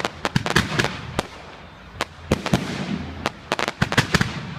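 Fireworks going off: a rapid, irregular string of sharp bangs and cracks, about a dozen in a few seconds, with crackling between them.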